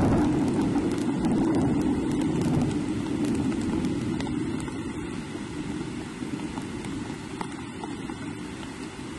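Rain and wind rushing on an outdoor nest-cam microphone, a steady low noise that is loudest at first and eases off, with scattered faint ticks of drops.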